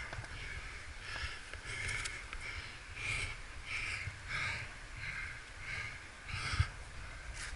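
A rock climber breathing hard and fast close to the microphone, in quick puffs about every half second, over a steady low rumble.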